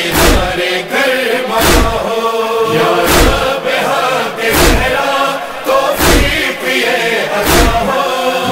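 Urdu noha (lament) soundtrack between verses: a chorus of men chanting in long held notes over a deep beat that falls about every one and a half seconds.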